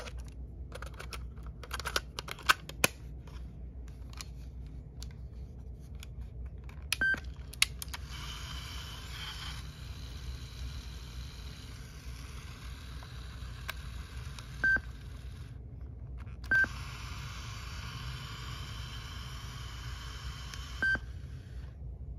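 Sony WM-EX621 Walkman cassette player being operated: a few sharp clicks from the lid and buttons, then four short beeps as its controls are pressed. Between the beeps comes a steady hiss from the tape running, heard through a small speaker.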